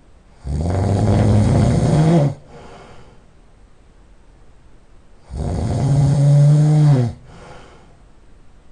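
A sleeping person snoring heavily: two loud, low, rattling snores about five seconds apart, each lasting nearly two seconds and followed by a short, softer breath.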